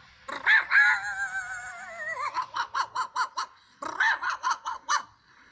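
A man imitating a small dog with his voice: a run of quick barks, then a long wavering whine that falls in pitch, then more quick barks after a short pause.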